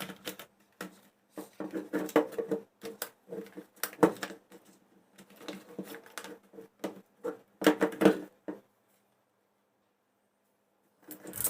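Power strip packaging cover being opened and handled: irregular crinkles, crackles and clicks that stop about three-quarters of the way through.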